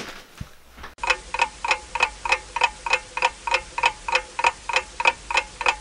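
A clock ticking steadily, about three ticks a second, starting about a second in. It follows a brief rustle and a small knock.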